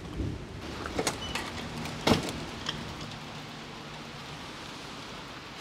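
A few sharp knocks and clicks, the loudest about two seconds in, over a steady hiss, with a faint low hum for a couple of seconds in the middle.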